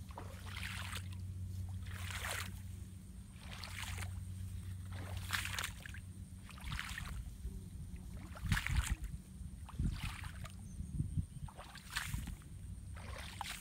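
Water splashing in a repeated rhythm, about one splash every second and a half, over a steady low hum, with a few heavier low thuds in the second half.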